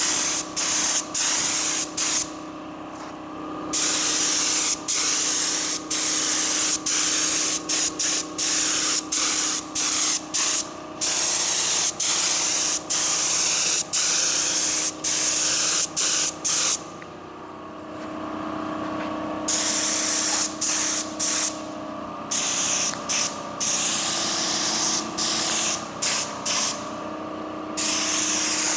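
Compressed-air gravity-feed spray gun hissing as it sprays paint. The trigger is let off for a moment many times, with longer pauses of a second or two about two seconds in and about two-thirds of the way through. A steady low hum runs underneath.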